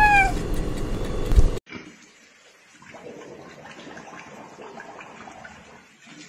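A penguin's short call, rising and falling in pitch, over a loud low rumble that cuts off about a second and a half in. After that, faint splashing, rustling and small clicks as pigs root with their snouts in a water trough.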